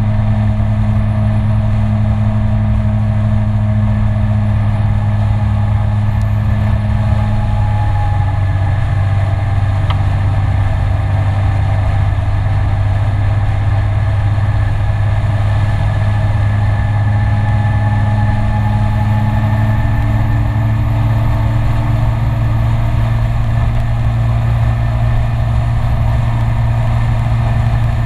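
SYM Citycom 300i scooter's single-cylinder engine running at steady cruising revs, its pitch shifting slightly a couple of times, under steady wind and road noise.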